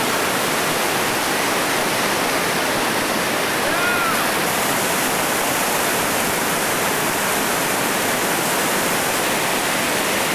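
Steady rushing of a whitewater river rapid, water churning and pouring over rock ledges.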